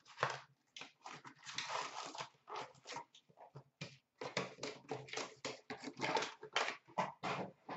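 Hobby box of trading cards being opened and its wrapped packs pulled out and handled: rapid crinkling and rustling of wrapper and cardboard in many short bursts.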